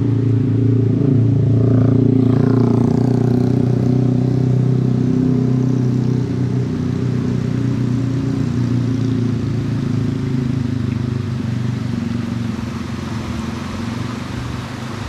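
An engine running steadily nearby, with a brief rising sound about two seconds in and a slight fade near the end.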